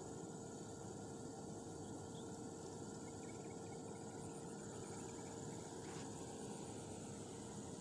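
Outdoor ambience of insects chirping steadily at a high pitch over a constant low hum, with one faint click about six seconds in.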